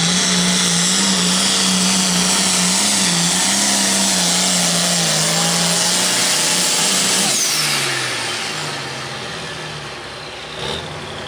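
Case MX pulling tractor's turbocharged diesel engine running flat out under the load of the weight-transfer sled. About seven seconds in it comes off the throttle at the end of the pull: the sound drops and the revs fall away.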